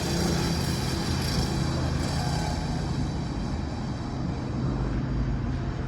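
Steady low hum under a continuous hiss of background noise.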